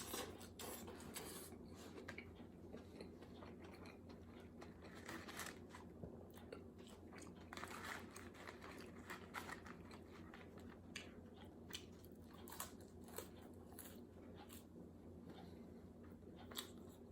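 Close-miked chewing of a burger and fries: quiet, irregular wet mouth clicks and soft crunches, a few louder ones near the end.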